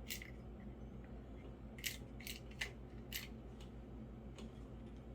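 Light, sharp clicks and taps of a small plastic-and-metal switch and meter probes being handled during a continuity check, about five of them spread over a few seconds, over a faint steady low hum.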